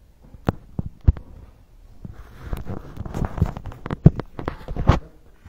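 Handling noise from a phone being moved about: irregular sharp knocks and clicks with rubbing and rustling between them, thickest from about two seconds in.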